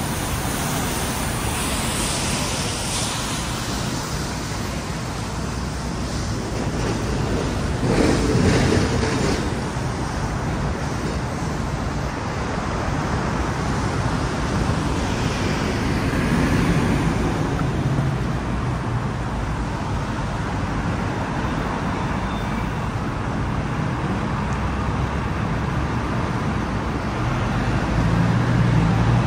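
Street traffic: a steady wash of passing cars and other road vehicles, with a louder swell about eight seconds in and another near the end.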